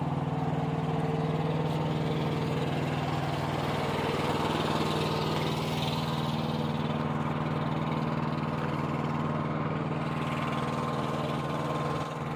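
Diesel semi-truck engine idling steadily, a constant low drone.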